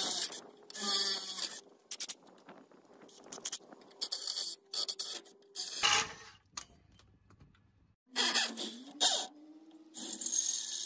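Power drill boring holes through a steel mounting bracket. A steady motor whine runs under repeated scraping bursts of the bit cutting the metal. The whine stops about six seconds in, and a drill spins up again a couple of seconds later.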